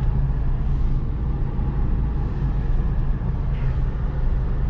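Steady low rumble of a car's engine and tyres heard from inside the cabin while driving along.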